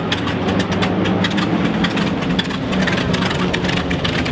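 B-25 Mitchell bomber's Wright R-2600 twin-row radial engine running steadily at low rpm during start-up.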